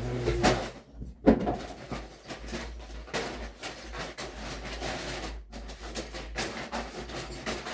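Paper bags of LEGO pieces tipped out of the box onto the floor and handled: irregular rustling and rattling, with one louder knock about a second in.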